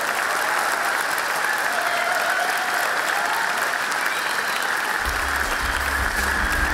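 A large theatre audience applauding steadily with dense clapping. A low bass sound joins about five seconds in.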